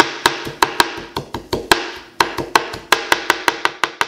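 Chef's knife chopping coriander leaves on a plastic cutting board: quick, even taps of the blade on the board, about five a second.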